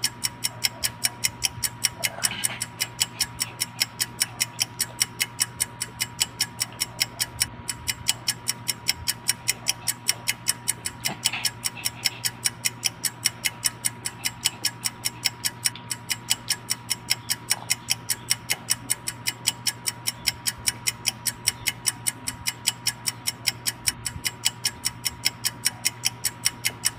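A clock ticking at an even, fast pace, several ticks a second, over a faint steady high tone: a ticking-clock sound effect.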